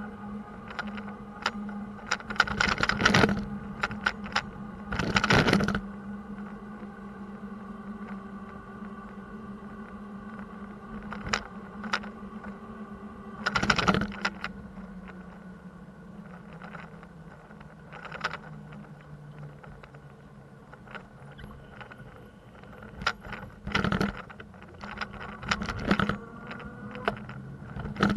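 Bicycle ride on city streets: sharp rattles and knocks as the bike goes over bumps, loudest in a few bursts, over a steady hum.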